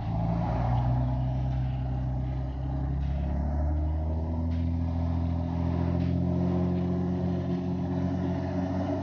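Dodge Ram's Cummins inline-six turbodiesel running as the truck drives, heard from inside the cab; its note climbs a little about four seconds in.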